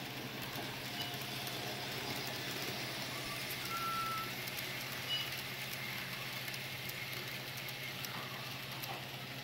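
N-scale model passenger train running on curved module track: a steady low running hum over even rail and room noise.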